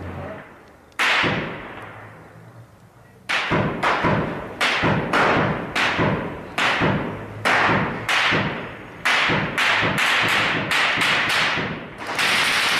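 Gunshots echoing down a street: a single loud shot about a second in, then from about three seconds in a steady run of shots, roughly two a second, each ringing off the buildings.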